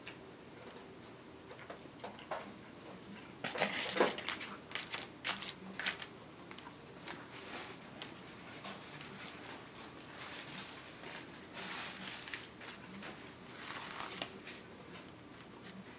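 Close-up eating sounds: chewing, with a fork clicking and scraping at steak in a plastic takeout bowl. The clicks and rustles come in two busy stretches, a few seconds in and again later on.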